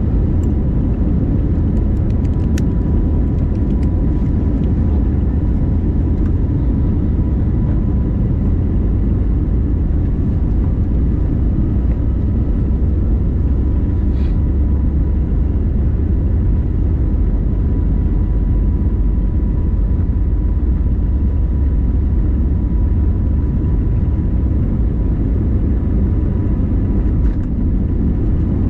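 Airbus A321neo engines and airflow heard from inside the passenger cabin: a steady, loud, low rumble with a faint, steady whine over it.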